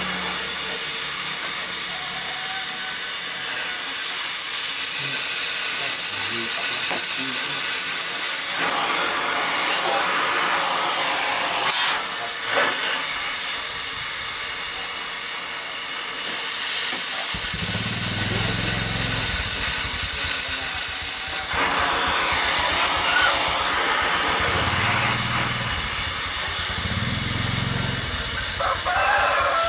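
Oxy-LPG cutting torch hissing steadily while cutting an iron pipe, the hiss growing louder for a few seconds at a time, with a low rumble joining about halfway through.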